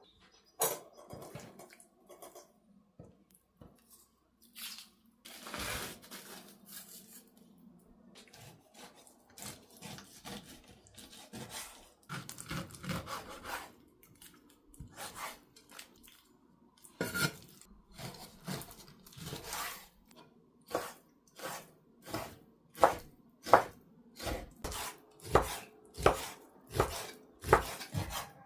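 Knife work on a cutting board: scattered scrapes and knocks at first, then steady chopping strokes, about one and a half a second, for the last several seconds.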